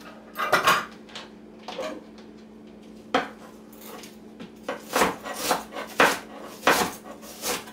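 Stainless measuring cups and spoons clinking and a kitchen knife tapping on the countertop as utensils are moved about: a few separate clinks, most of them in the last few seconds, over a faint steady hum.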